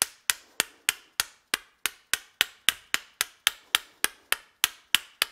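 Soft-faced hammer tapping a snug-fitting gear down onto a drill press's power-feed clutch housing: an even run of sharp blows, about three and a half a second, that stops near the end.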